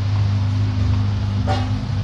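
Santa Fe diesel engine running steadily with a loud low hum, with a short sharp click about one and a half seconds in.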